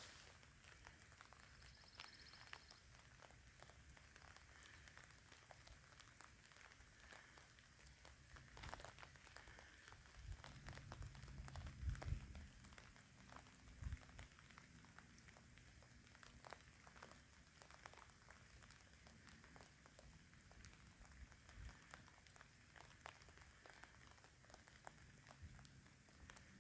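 Faint patter of light rain, with scattered drops ticking close to the microphone. A soft low rumble rises about ten seconds in and fades a few seconds later.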